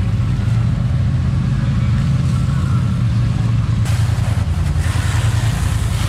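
Pressure washer running steadily. About four seconds in, the hiss of its spray blasting mud off an ATV joins in.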